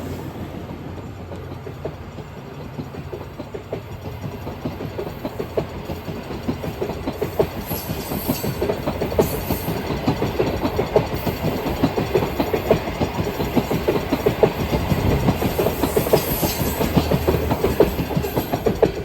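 Long-distance passenger train rolling past, its wheels clicking over the rail joints in a fast, rhythmic clatter that grows louder after a few seconds.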